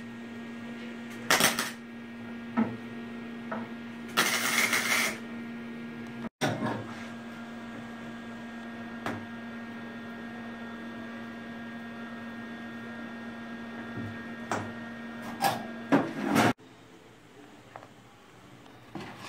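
MIG welder arcing in short bursts of crackling hiss, the longest about a second, as nails are tacked onto a dent in a steel truck body panel. Under it runs a steady electrical hum, with a few light metallic clicks. The hum stops abruptly near the end.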